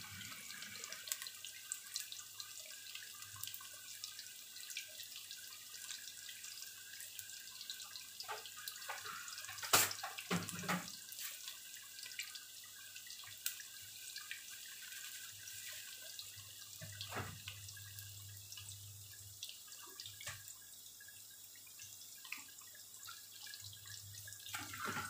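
Battered tempeh (tempe mendoan) deep-frying in a wok of hot oil: a steady sizzle with scattered crackles and pops, and one sharp pop about ten seconds in.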